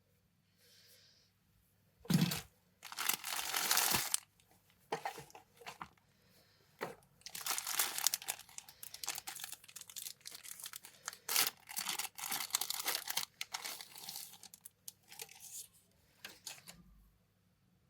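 Plastic packaging crinkling and rustling in irregular bursts, with small clicks, as it is handled and pulled open.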